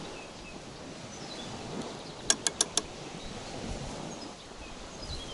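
Outdoor background of faint wind with scattered short bird chirps, broken a little over two seconds in by four quick, sharp clicks in a row.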